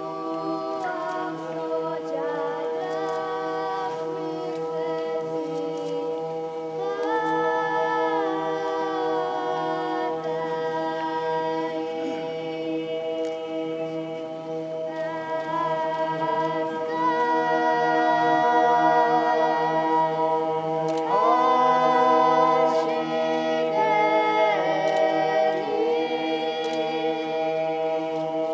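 Eastern Orthodox hymn sung a cappella by a choir: a low note held steadily beneath while the upper voices move through slow, sustained phrases, swelling louder in the second half.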